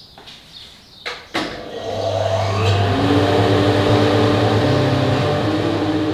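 A click about a second in, then a power saw starting up and running steadily, about to cut drawer-bottom panels. Electric-guitar music comes in under it near the end.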